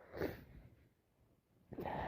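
A person with a heavy head cold sniffing through a congested nose: a short sniff, then a longer, louder breath through the nose starting near the end.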